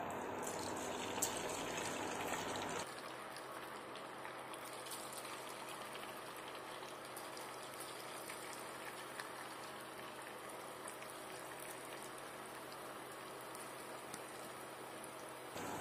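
Flour-coated idli pieces sizzling in hot oil in a frying pan: a steady hiss with many small crackles as the pieces are dropped in and fry.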